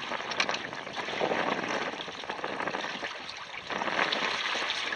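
Water rushing along the hulls of a sailing double canoe, the noise swelling and easing, with a dip about three seconds in.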